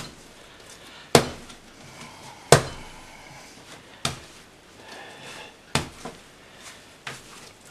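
Hand-kneaded bread dough slapped down onto a work table and folded over, about one sharp slap every second and a half, as salt is worked into the dough.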